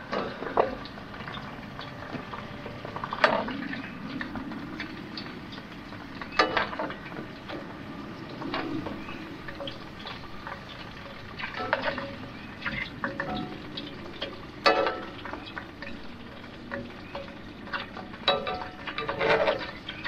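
Metal tongs clinking and scraping against a frying pan and plate as homemade fries are lifted out of the hot oil, in irregular sharp clicks, the loudest about three, six and a half, twelve and fifteen seconds in and a cluster near the end. Under them runs a steady sizzle of frying.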